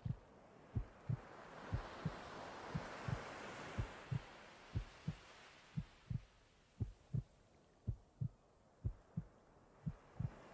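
A slow heartbeat, double thumps (lub-dub) about once a second, steady throughout. A soft rushing noise swells up over the first few seconds and fades away again beneath it.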